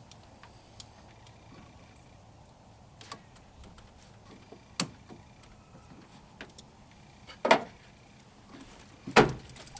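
Channel-lock pliers working a radiator hose clamp: a few sharp metallic clicks and clanks, the loudest about halfway through and another near the end, over a steady low hum.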